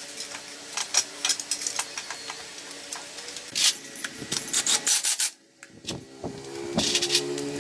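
Hand-tool work on motorcycle parts: repeated rubbing and scraping strokes mixed with sharp clicks, broken by a short quiet gap about five seconds in.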